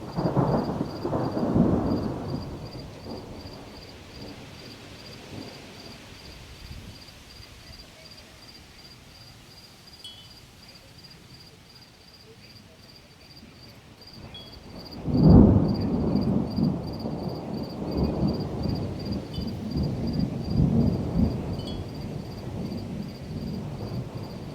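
Thunder: a rumble that fades over the first few seconds, then a sharp loud clap about fifteen seconds in that rolls on in long low rumbles. Crickets chirp steadily underneath in a high, evenly pulsing tone.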